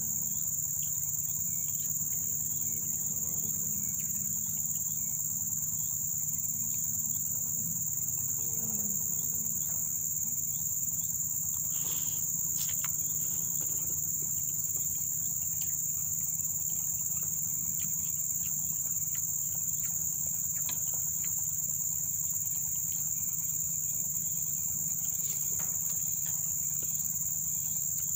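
Steady high-pitched insect chorus, one continuous shrill drone that does not change, with a few faint clicks of a spoon against a camping cooking pot.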